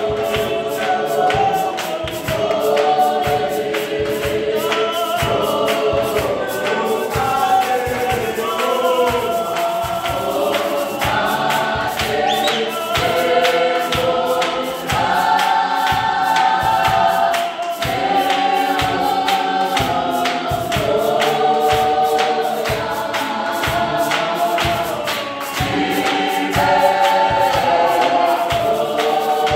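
Gospel choir of men and women singing together, with a steady beat of hand claps about twice a second.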